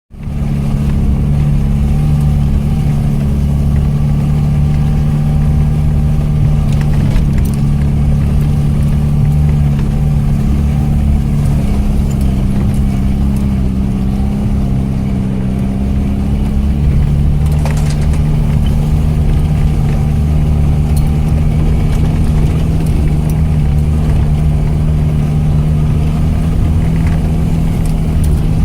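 ARO off-road vehicle's engine running steadily under way, its pitch shifting slightly a couple of times, with a few faint knocks and rattles.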